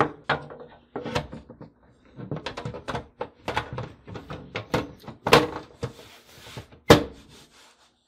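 Side panel of a Dell Inspiron 3471 small desktop being fitted onto the chassis: an irregular string of knocks, clicks and scrapes as its clips are lined up, with sharper knocks a little past five seconds and again near seven.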